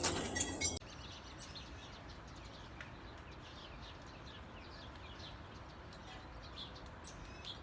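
Metallic jingling and clinking that cuts off abruptly under a second in. Then small birds chirping, many quick short calls, over a faint steady hiss.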